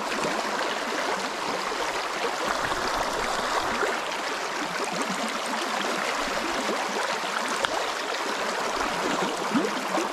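Fast, muddy creek water rushing over riffles: a steady running-water noise.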